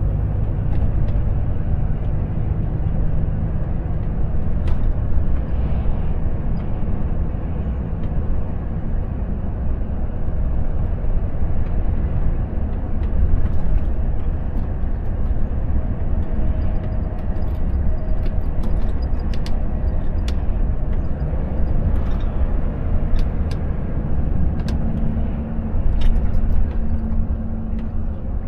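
Cab interior of a Volvo FH 460 truck under way at about 60–70 km/h: its 13-litre straight-six diesel running steadily under tyre and road noise. A few faint clicks and rattles come through in the second half.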